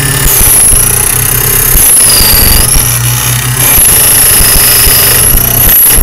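Small electric key duplicating machine cutting a brass key blank: a loud high screech from the cutter wheel over the motor's hum, the pitch wavering as the blank is fed slowly along the cut. The small motor bogs down a bit under the load.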